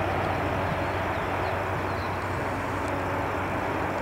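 Airbus A400M Atlas's four Europrop TP400 turboprop engines and eight-bladed propellers droning as the aircraft climbs away: a steady low hum under a broad rush, slowly fading.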